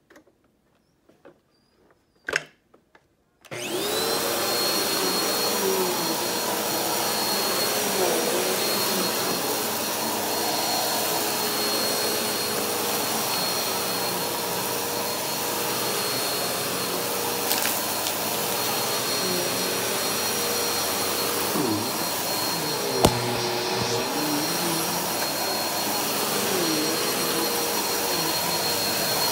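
Bagless upright vacuum cleaner starting up suddenly about three and a half seconds in after a click, then running steadily with a high motor whine as it is pushed over carpet. One sharp knock sounds later on.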